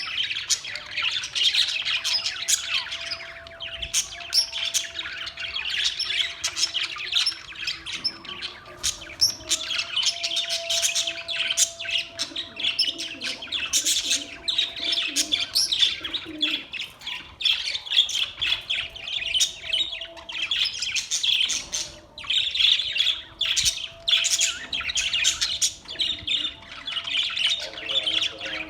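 Budgerigars in a cage chattering: a continuous mix of fast chirps, warbles and squawks from several birds at once.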